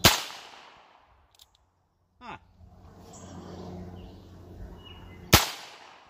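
Two gunshots about five seconds apart from a Heritage Barkeep single-action .22 LR revolver with a 2-inch barrel, firing CCI Stinger hyper-velocity rounds. Each shot is a sharp crack with a short ringing tail.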